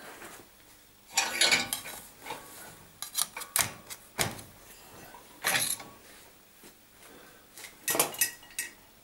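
Sheet-steel pieces clanking and scraping against a steel bench vise, in five or six separate bouts of sharp knocks and brief rattles.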